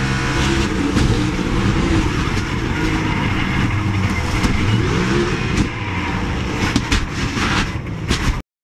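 In-car audio of a NASCAR Cup race car: the V8 engine running loud, its pitch sliding up and down as the car goes out of control, then several sharp bangs and scraping in the last few seconds as the car crashes. The sound cuts off abruptly near the end.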